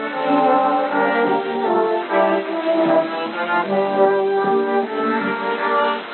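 Instrumental music from the Voice of Korea shortwave broadcast on 11710 kHz: a melody of held notes, band-limited with nothing above about 4 kHz.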